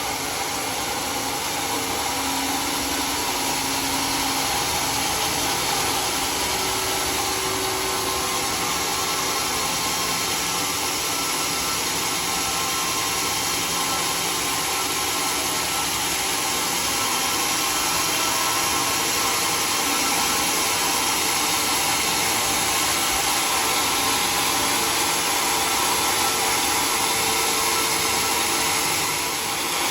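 Sawmill saw running steadily through a mahogany log, a continuous loud, hissing machine noise with no pauses.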